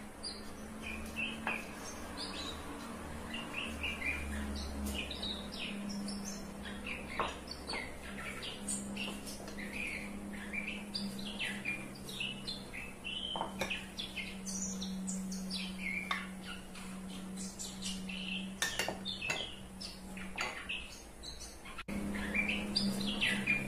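Birds chirping over and over in short calls, with a few sharp clinks of glass and kitchen utensils and a steady low hum underneath.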